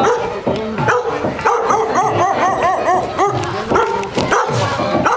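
Several dogs barking, with a quick run of short high yelps, about four a second, through the middle.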